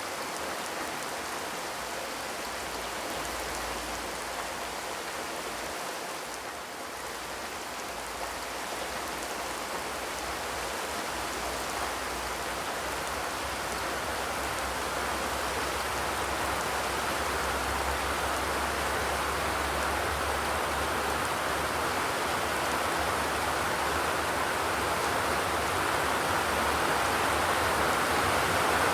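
Steady rain falling on a zinc sheet-metal roof, an even patter of drops without thunder, gradually growing louder over the stretch.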